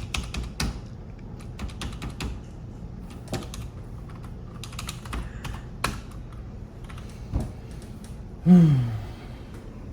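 Irregular clicking of keys being typed on a computer keyboard. Near the end comes a short, louder voiced sound falling in pitch, like a groan or sigh.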